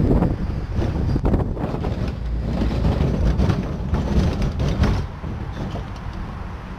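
Heard from on board a steel roller coaster car: the wheels rumble and rattle along the track while wind buffets the microphone. It eases off about five seconds in.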